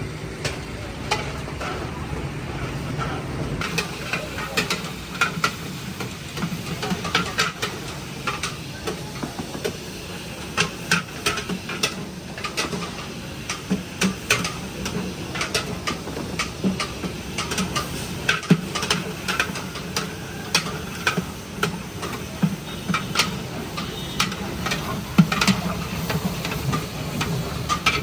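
A metal ladle stirring in a large cooking pot, clinking and scraping against it in short, irregular strokes over a steady sizzling hiss.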